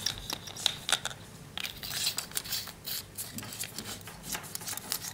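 Metal flashlights being handled: a run of small, irregular metallic clicks and clinks.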